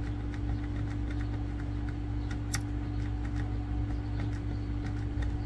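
Flux sizzling under a hot soldering iron tip as low-melt solder is melted on circuit board pins, heard as faint irregular crackling ticks. Beneath it runs a steady low hum.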